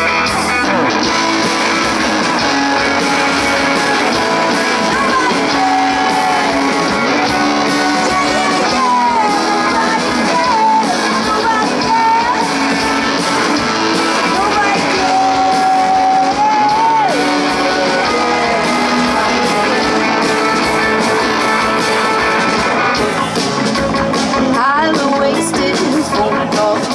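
Live rock band playing loudly, led by amplified electric guitar, with long notes that bend up and down in the middle, and some vocals without clear words over it.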